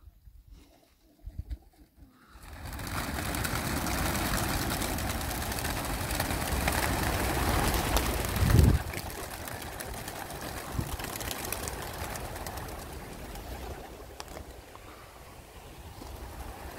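A large flock of racing pigeons released all at once from a transport trailer, hundreds of wings clattering in a sudden dense rush about two and a half seconds in, then slowly thinning as the flock flies off. A brief low thump stands out about eight and a half seconds in.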